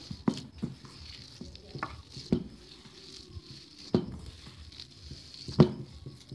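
Hand kneading a moist grated-cauliflower and gram-flour dough in a steel bowl: soft squishing and patting, with a few sharp knocks, the loudest near the end.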